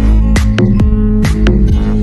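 Loud electronic dance music with a steady beat, heavy bass and sustained synth notes.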